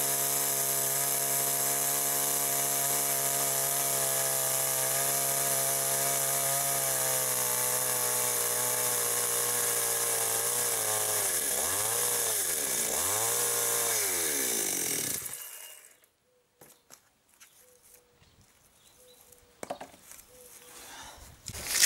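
Chainsaw running steadily at high speed, its pitch sagging and recovering twice as it bites into a plank, then shut off about 15 seconds in. After that come quiet handling sounds of boards, with a sharp knock at the very end.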